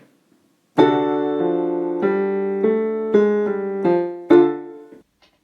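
A short piano passage: a run of chords, each struck and changed about every half second, starting about a second in, with the last chord the loudest and fading away just before the end.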